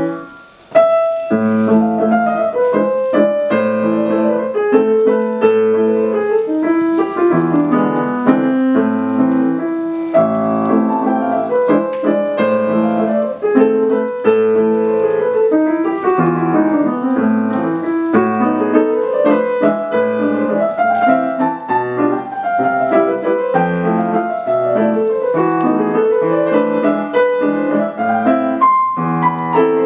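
Solo grand piano playing a classical piece: after a brief break at the start, a loud chord about a second in, then continuous, busy passages with many notes sounding together.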